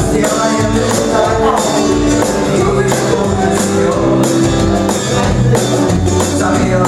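Rock band playing a song, with bass guitar underneath and drums keeping a steady beat.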